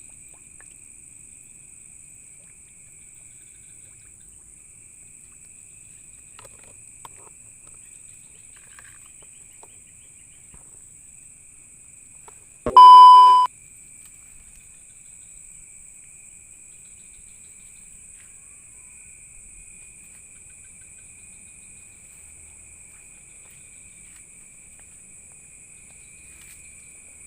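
Steady high chirring of night insects such as crickets. About halfway through, a loud electronic beep sounds once for under a second, louder than anything else.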